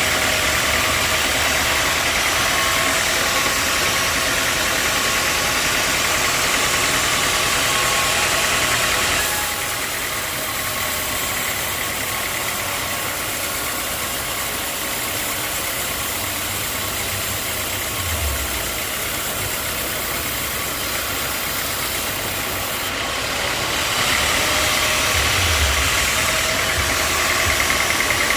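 Sawmill machinery running steadily with a hissing, mechanical noise. It is louder for about the first nine seconds and again near the end, quieter in between, with a couple of short low rumbles.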